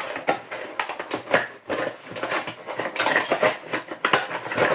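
Plastic turret parts of a 1/16 scale Tiger I model kit being handled against each other and the cardboard kit box: a dense, irregular run of clicks and knocks.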